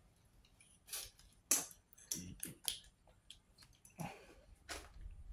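Irregular clicks, taps and light knocks of small electronic parts and wires being handled on a work surface, about seven in a few seconds.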